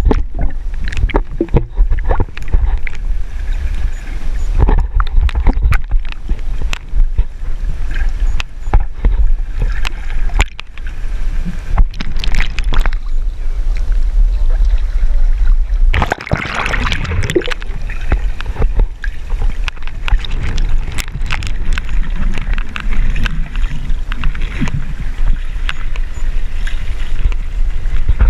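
Water noise picked up by a GoPro in its waterproof housing as it moves underwater on a pole: a steady low rumble with many knocks and clicks, and a louder splashing stretch about sixteen seconds in.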